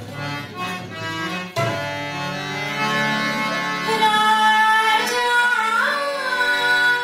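Rajasthani folk music of sarangi and tabla: a bowed sarangi melody in long held notes with a sliding turn near the end, over a few tabla strokes in the first two seconds.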